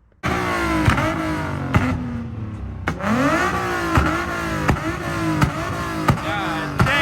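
Car engine revving up and down again and again, starting abruptly, with sharp regular clicks about once a second.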